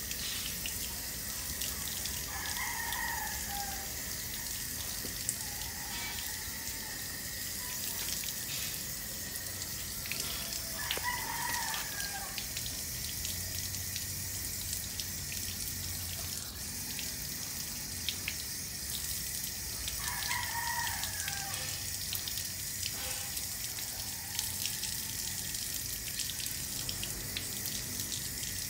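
Water from a wall tap running steadily and splashing over a rooster's feet as they are washed by hand. A rooster crows three times, about every nine seconds, and starts a fourth crow at the very end.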